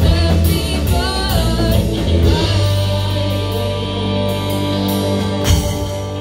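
Live rock band playing the close of a grunge song: a female voice singing over distorted electric guitars, bass and drums, then the band holds a final chord that rings on, with one more sharp hit about five and a half seconds in.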